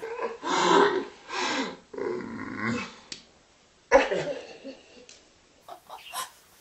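Two young women laughing hard in loud bursts. A sudden, very loud outburst comes about four seconds in and then trails off.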